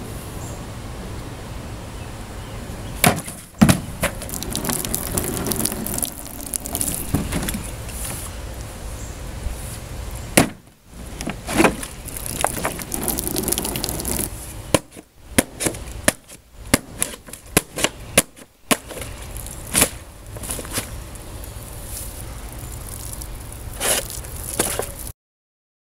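A scuffle with a series of sharp knocks and cracks: a couple of blows early, more about a third of the way in, a quick string of them in the middle, and one near the end, over a steady low hum. The sound cuts off abruptly just before the end.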